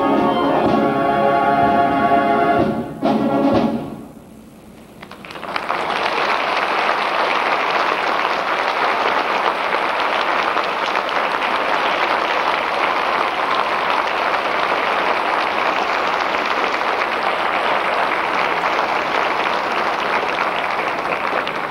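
A school orchestra with prominent brass holds a final chord that ends about three seconds in; after a brief lull, the audience breaks into steady applause, which fades near the end.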